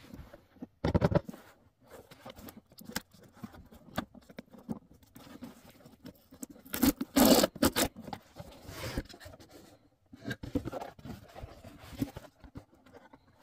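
Cardboard shipping box being handled and opened: irregular scraping, rustling and tapping of cardboard, with a louder ripping burst about seven seconds in as the pull-strip is torn open.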